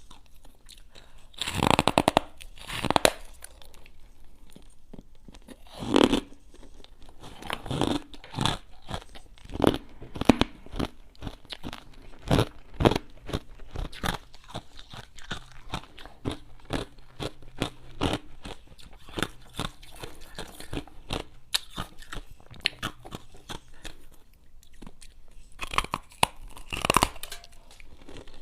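Close-miked crunching of ice being bitten and chewed, with a few large bites among many quick crunches throughout.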